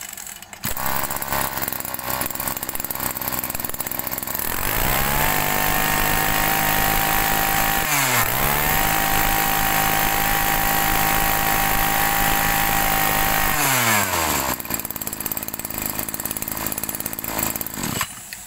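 Maruyama 23cc two-stroke brush cutter engine catching about half a second in and idling. It is then revved to high speed for about nine seconds, with a brief dip in the middle, dropped back to idle, and shut off near the end.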